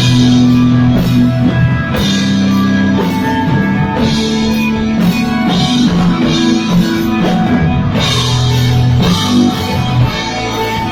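Instrumental desert rock from electric guitar, bass and drum kit, with long held low notes under guitar lines and cymbals.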